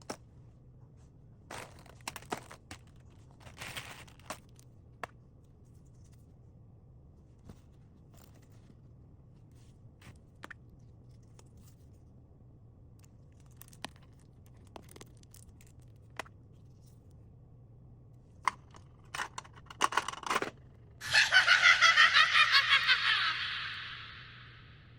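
Quiet taps, clicks and rustles of items and packaging being handled, then a loud rapid ripping about three seconds long near the end that fades away.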